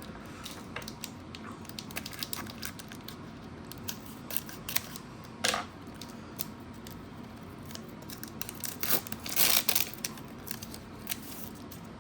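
Foil Pokémon booster pack being opened and handled: crinkling and tearing of the foil wrapper with many small crackles, the loudest bursts about five and a half seconds in and again around nine to ten seconds.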